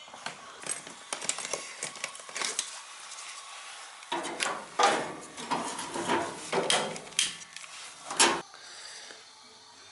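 Irregular clicks, knocks and metal clatter from hands working on a gas space heater's controls and panel, with sharper knocks about five and eight seconds in.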